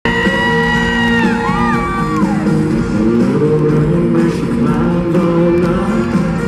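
Live country band with a male lead singer, recorded from within the audience. A few high notes slide downward in the first two seconds.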